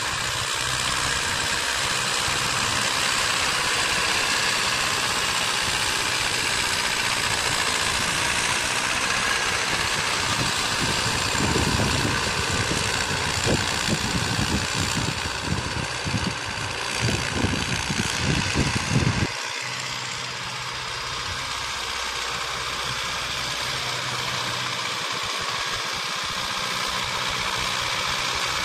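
Ursus C-360 tractor's four-cylinder diesel engine running steadily while pulling a cultivator through tilled soil. For a stretch in the middle, irregular low thumping joins it and stops abruptly about two-thirds of the way through.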